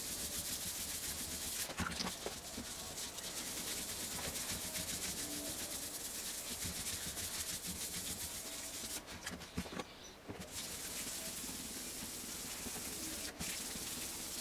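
Fine wet-and-dry paper (1500 grit) on a hand pad rubbed back and forth over the wet clearcoat of a Mk1 Mazda MX5's boot lid: a steady scrubbing that flattens out the orange peel in the lacquer. The rubbing lets up briefly about two-thirds of the way through.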